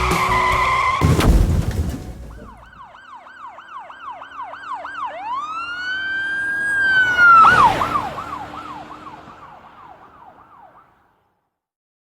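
Emergency vehicle siren cycling fast in yelp mode, switching to a long rising wail with a short loud blast, then back to yelp and fading away. It starts after music ends with a loud hit about a second in.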